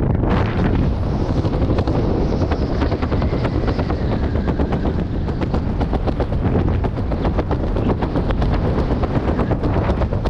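Strong wind buffeting the microphone, with a fast rattling flutter running through it.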